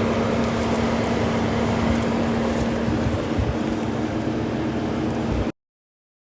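Kubota SVL75-3 skid steer's diesel engine running steadily with an even hum. The sound cuts off abruptly about five and a half seconds in.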